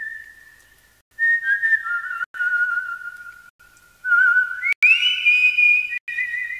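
Someone whistling a slow tune: held single notes with a wavering vibrato, stepping down and then sliding up to a higher held note about five seconds in. The tune is broken by a short pause about a second in and a few brief cut-outs.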